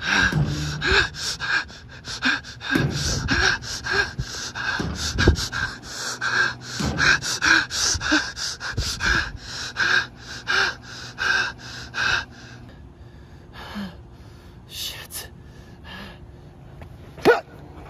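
A man panting hard and fast, about two breaths a second. After about twelve seconds the breathing slows and quietens, and one sharp gasp comes near the end.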